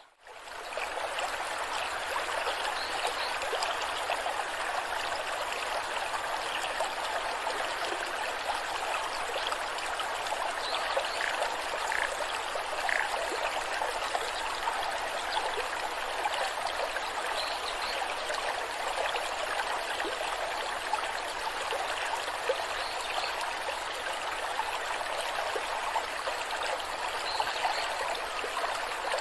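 Waterfall: water cascading in a steady, even rush, which fades back in just after the start.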